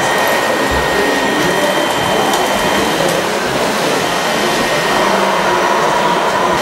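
Hydraulic pump of a model Bell articulated dump truck whining steadily over a rushing of soil pouring from its tipped body; the whine drops to a lower pitch near the end.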